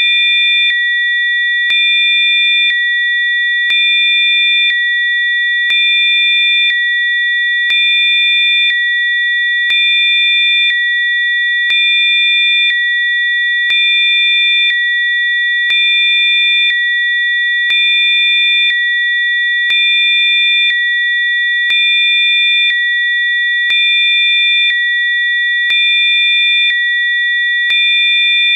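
Several steady, high-pitched electronic sine tones sounding together as a Rife frequency track, the mix shifting slightly and the level dipping a little about every other second.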